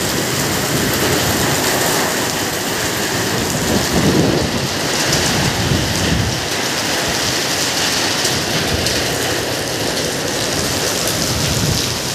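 Heavy typhoon rain pouring steadily, with strong wind gusts rumbling on the microphone, loudest about four to six seconds in.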